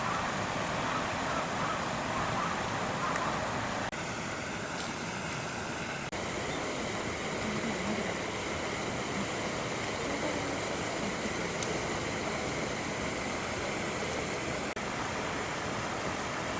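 Steady outdoor background noise, an even hiss with no distinct event, with brief dips in loudness about 4, 6 and 15 seconds in.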